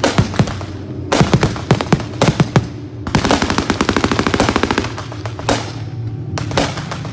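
Bursts of rapid, machine-gun-like firing, simulated anti-aircraft fire. A long unbroken burst starts about three seconds in and lasts about two and a half seconds, with shorter bursts before and after it.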